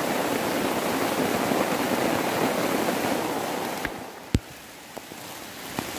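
Heavy rain pouring in a steady dense rush, which drops off sharply about two-thirds of the way through to a lighter patter with a few sharp knocks.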